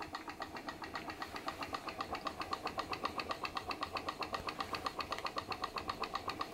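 PM Research glass Stirling engine running slowly under the load of a belt-driven model Baker fan, its mechanism making a steady, even clicking of about six or seven clicks a second.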